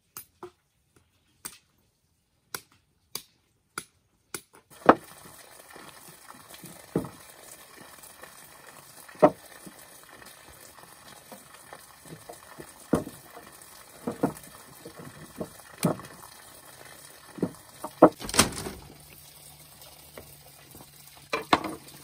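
Machete chopping cassava roots on bamboo logs: sharp knocks every second or two over a steady hiss, with a longer, rougher burst near the end. The first few seconds hold only a few scattered light taps.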